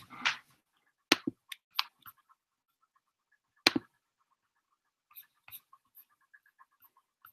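Handling noise close to a computer microphone: scattered sharp clicks and knocks, the loudest about four seconds in, then fainter ticks near the end.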